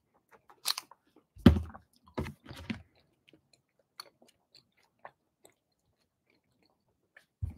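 A person biting into and chewing a crunchy stick-shaped snack. There are a few sharp crunches in the first three seconds, then fainter crackling chews that die away.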